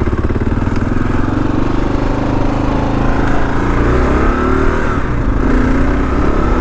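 Kawasaki KLR 650's fuel-injected single-cylinder engine running as the bike is ridden, a steady loud engine note that rises and falls a little about halfway through.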